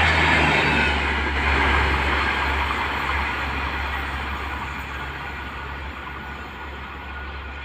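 Express passenger train of LHB coaches passing at speed. The rush of its wheels on the rails fades steadily as the last coach recedes down the line, over a steady low hum.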